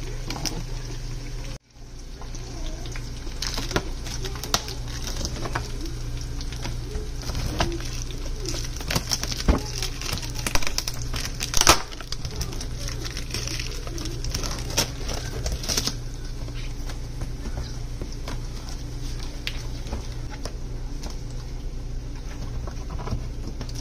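Cardboard box being slit open along its packing tape: scattered crackles, scrapes and taps, loudest around the middle, with the handling dying away after about two-thirds of the way in. A steady low hum runs underneath.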